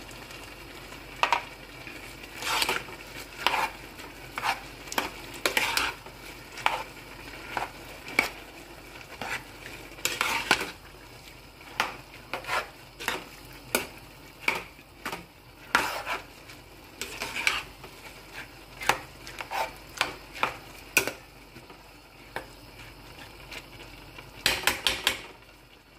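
A metal spoon stirring rice in a large metal pot, scraping and knocking against the pot at irregular intervals, one or two strokes a second. Underneath is a faint steady hiss from the rice cooking in its stock.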